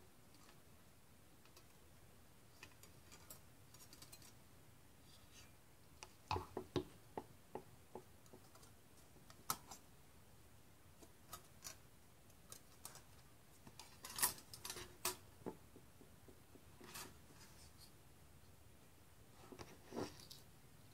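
Tiny scissors snipping parts off a thin metal model-kit sheet, with light clicking and rattling of the metal as it is handled. The snips are sparse, with sharp clusters about six seconds in, around fourteen seconds, and again near the end.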